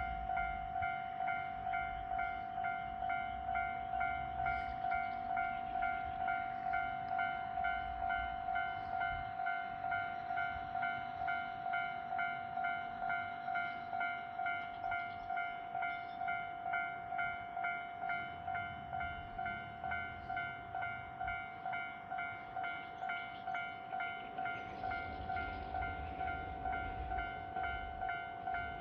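Japanese railway level-crossing warning alarm ringing its steady, evenly repeated electronic ding at about two strokes a second, the signal that a train is approaching and the barriers are down. A low rumble rises about 24 seconds in.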